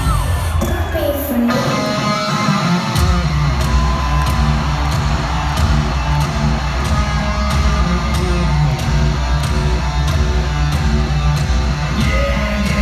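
Rock band playing live: an electric guitar riff with steady drums. The full band comes in about a second and a half in, and the heavy bass low end joins about three seconds in.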